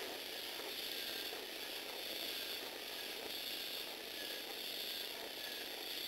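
Lego Technic walking robot's motor and plastic gear train running, a steady whirring, ratcheting clatter as the gears drive the four legs.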